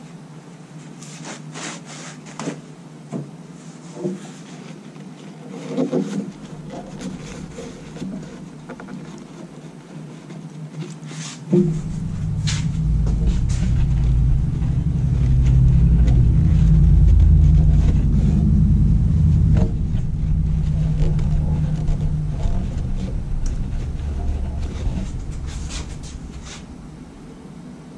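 Scattered light clicks and taps. About twelve seconds in, a sharp knock is followed at once by a low rumble that grows louder, holds, and fades out near the end.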